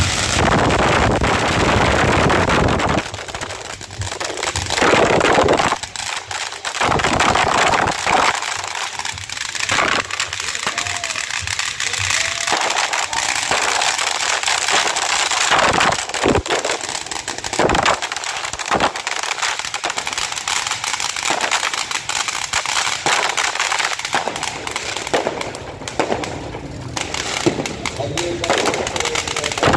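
Firecrackers and fireworks going off: rapid crackling pops and bangs that come in bursts, with crowd voices behind.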